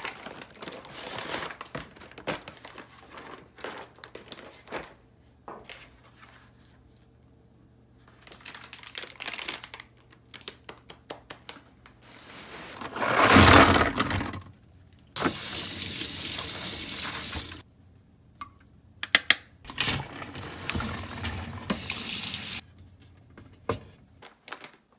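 Plastic and paper packaging rustling and crinkling as groceries are unpacked, then a kitchen tap running into a stainless steel sink in stretches of a few seconds, turned on and off over the second half.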